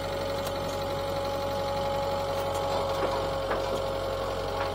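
Engine of a fork-equipped loader running as it lifts a stack of lumber, with a steady whine throughout and a few light knocks about three seconds in and near the end.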